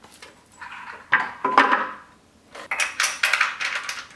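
Hands working the bike's front stabilizer hardware and cut zip ties: a metallic clink with a short ring about a second in, then a quick run of clicks and rattles near the end.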